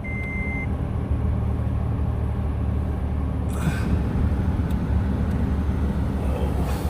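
Toyota Tacoma pickup engine idling steadily while warming up, with a short electronic beep at the start and a brief rushing noise about three and a half seconds in.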